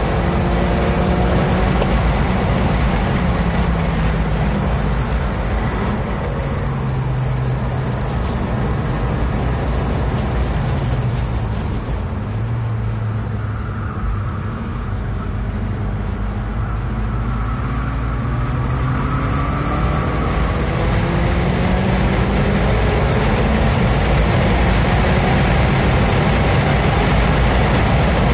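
2016 Ford Focus RS's turbocharged 2.3-litre four-cylinder engine heard from inside the cabin on a race track: the engine note falls as the car brakes and downshifts into a slow corner, runs low through the corner, then climbs again under full throttle with upshifts through the gears.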